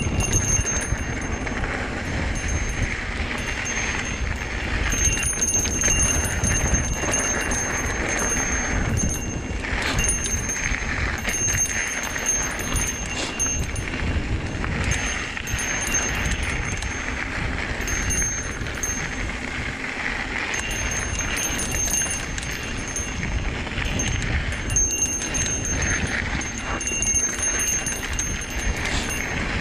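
Trek Fuel EX 7 mountain bike riding down dirt singletrack: a steady rush of wind and tyre noise with rumbling over the rough ground, and a high metallic jingling that comes and goes throughout.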